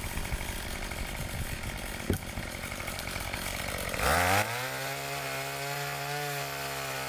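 Pole saw running: a rough, noisy stretch with a single knock about two seconds in, then about four seconds in the motor spins up with a quick rising pitch and settles into a steady tone.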